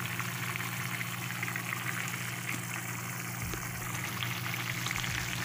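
Pork stew boiling in a pan: a steady bubbling with faint scattered crackles, over a steady low hum.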